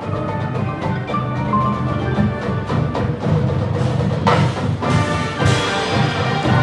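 Marching band playing, with drums prominent in a steady rhythm under the winds.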